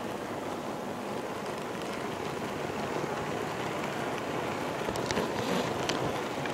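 Steady gritty rolling noise of an HO-scale model railroad car's metal wheels on the track, heard through a microphone riding on the car itself. Several sharp clicks come near the end.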